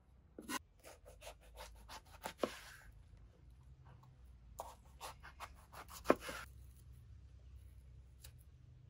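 Large kitchen knife cutting through raw jackfruit on a wooden chopping block: two runs of crisp cuts and scrapes, with one sharp knock about six seconds in.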